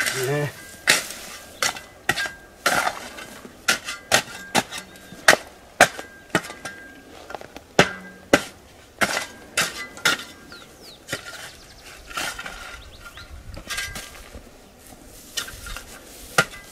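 A shovel striking and scraping dry, stony soil in a string of sharp, irregular chops, about one to two a second, fewer and softer in the second half. The soil is being dug up around a newly planted maguey to form a basin that will hold rainwater.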